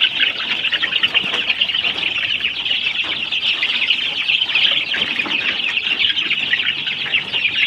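A brood of young chicks peeping without a break, many high cheeps overlapping.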